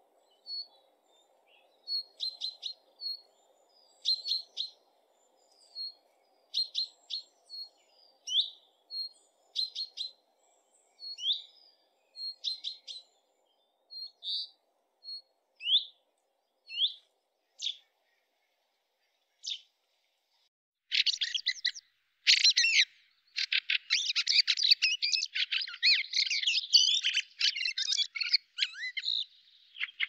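Common chaffinch calling: short, sharp, high notes, some sliding up or down, repeated every second or so. About two-thirds of the way through this gives way to a dense, harsh chattering of birds.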